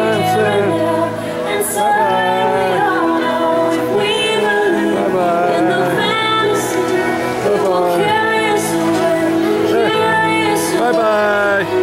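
Music: a song with singing voices over sustained held chords.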